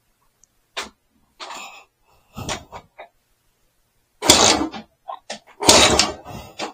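BSA Bantam B175 two-stroke single-cylinder engine on a stand being kicked over: a few kickstart clunks, then irregular loud firing bursts from about four seconds in as it begins to catch.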